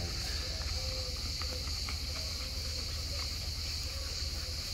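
Steady, high-pitched buzzing chorus of insects, typical of cicadas, over a low steady hum.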